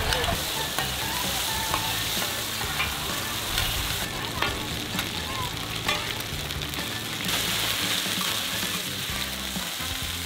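Mussel-and-oyster omelette (hoy tod) sizzling and frying in plenty of hot oil on a large flat pan, with a metal spatula scraping and tapping against the pan every second or so.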